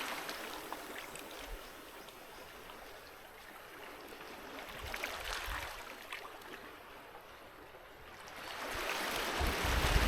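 Sea waves washing on a beach: the wash of one wave dies away, a small surge comes in about halfway, and a bigger wave builds and rolls in near the end.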